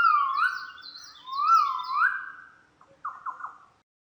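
A bird whistling: two phrases of clear rising whistled notes, one at the start and one about a second and a half in, then a quick run of short notes about three seconds in.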